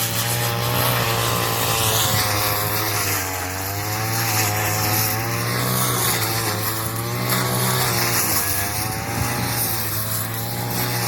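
Motor of a straw-cutting machine running steadily, its pitch sagging and recovering several times as it takes load.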